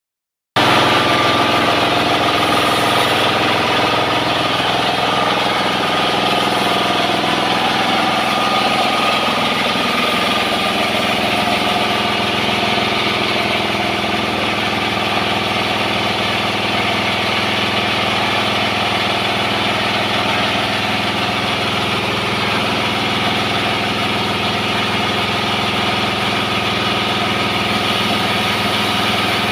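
Horizontal sawmill running with a steady engine-like drone and a constant, even level throughout.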